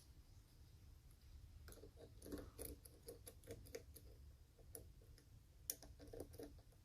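Faint, irregular metal clicks and ticks of a forked lock pick working the sliders of an EVVA 3KS lock, pushing them down. The clicks start about two seconds in and come in an uneven string, with a small cluster near the end.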